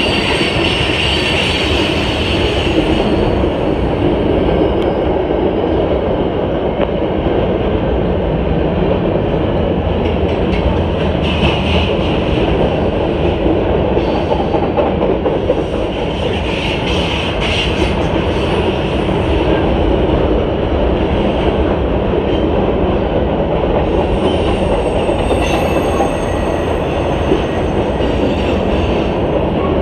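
Freight cars of a CSX mixed train rolling past at close range: a loud, steady rumble of wheels on rail. A higher squeal from the wheels rises near the start and twice more partway through.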